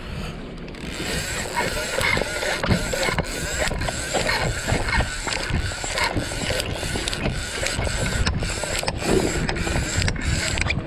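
Avet TRX 80 Narrow lever-drag reel being worked by hand, its handle cranked in a steady rhythm of about two to three strokes a second, with wind buffeting the microphone.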